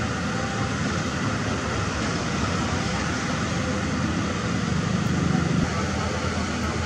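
Diesel engine of a CAT 320D L long-reach hydraulic excavator running steadily under digging load, swelling briefly louder about five seconds in.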